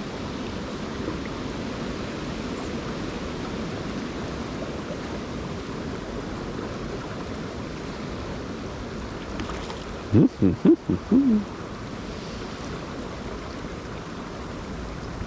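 Steady rushing of a river running high. About ten seconds in there is a short run of low pitched sounds that bend up and down.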